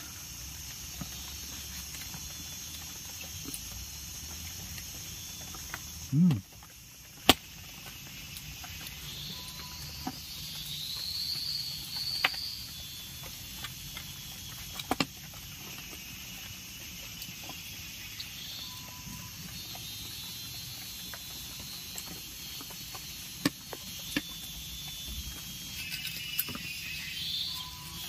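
Steady high-pitched insect chorus, with scattered sharp clicks and small sounds of someone eating a meal.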